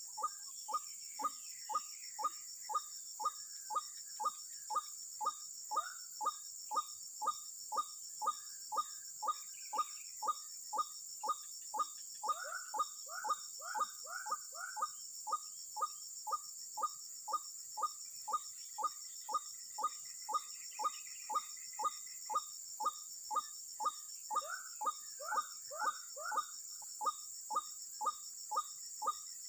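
White-breasted waterhen (ruak-ruak) calling: short falling notes repeated steadily about twice a second, growing louder for two spells, about twelve seconds in and again near twenty-five seconds.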